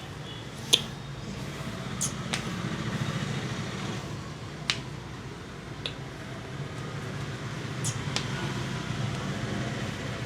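Sharp snaps and cracks from a barber's hands during a head massage, about seven spread unevenly across the stretch, the loudest about a second in. A steady low rumble runs underneath.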